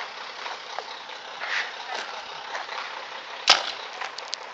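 A single sharp, loud pop of a paintball marker firing about three and a half seconds in, then a few fainter pops near the end, over a steady outdoor hiss.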